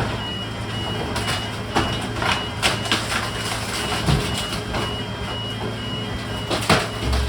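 Truck reversing alarm beeping steadily, about two beeps a second, over the running diesel engine, with intermittent metal clanks.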